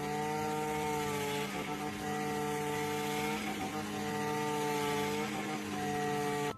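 A motor running steadily with a droning hum, its pitch sagging a little and recovering every second or two, as if loaded and released.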